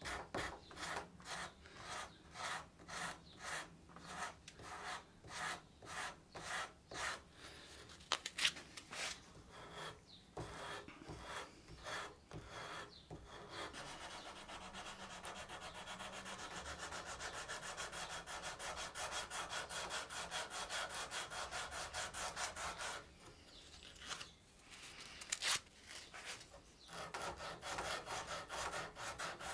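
Hand file scraping on the wooden neck-to-headstock transition of a guitar neck, cutting in flared edges. It goes in even strokes about two a second, then a faster run of short strokes about halfway through, a brief pause, and the strokes pick up again near the end.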